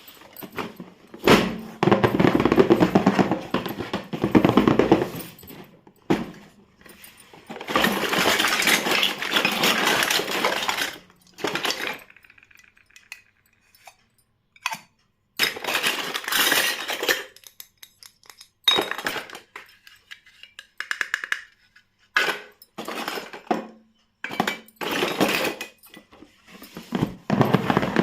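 Unboxing of a miniature plastic toy kitchen set: packaging rustling in long stretches, broken up by many short bursts and small plastic clicks and clinks.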